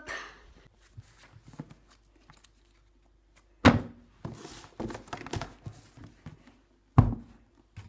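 Two sharp thunks about three seconds apart, as things land on a wooden tabletop, with lighter knocks and handling noise between them.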